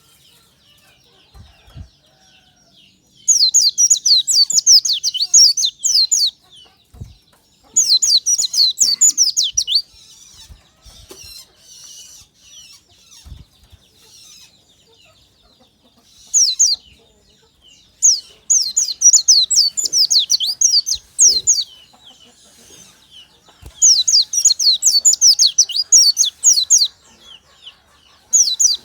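White-eye (pleci) singing: about six loud phrases, each a fast run of high, downward-sweeping notes lasting one to three seconds, separated by short quiet gaps with a few faint chips.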